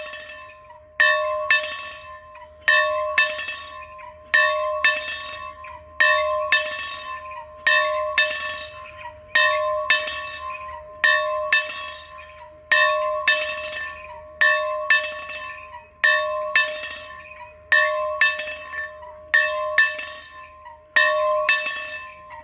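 A church bell rung steadily, one strike about every one and a half to two seconds, sometimes with a lighter second stroke close behind. Each strike rings out on the same pitch and fades before the next.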